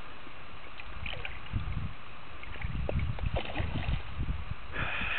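Steady rush of river water, with low uneven gusts of wind buffeting the microphone. A brief splash sounds near the end.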